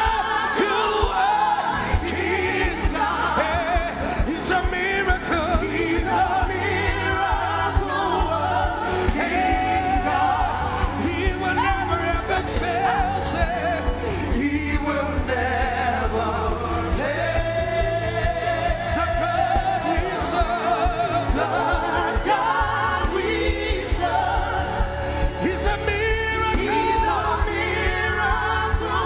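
Live gospel worship music: several singing voices over a band with a steady bass line and cymbals.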